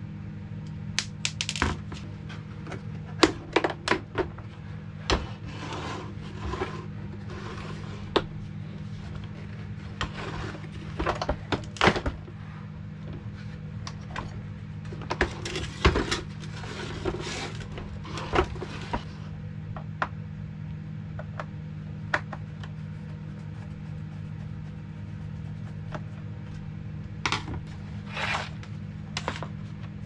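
Plastic vacuum cleaner housing being taken apart by hand: a screwdriver working on screws and plastic parts clicking, knocking and rattling as the cover is pried loose and set down on a wooden workbench. Irregular sharp clicks and knocks, several louder than the rest, over a steady low hum.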